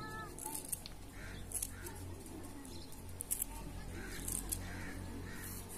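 Crows cawing several times, with light clicks of a knife cutting vegetables on a plate.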